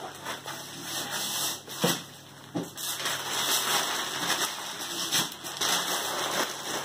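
Christmas wrapping paper being torn and crumpled by hand, a continuous crackling rustle with sharp rips.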